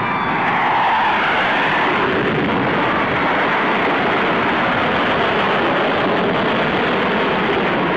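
Jet fighter's engine roaring loud and steady on a low pass, with a sweep in pitch in the first couple of seconds as it goes by.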